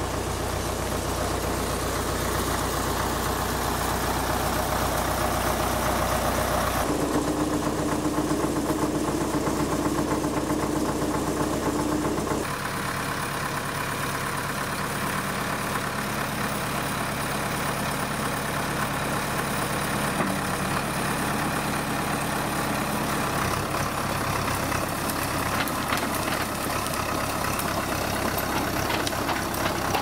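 Vintage Fiat crawler bulldozer's diesel engine running steadily, its note changing sharply twice in the first half. Short clicks and clanks come in over the last few seconds.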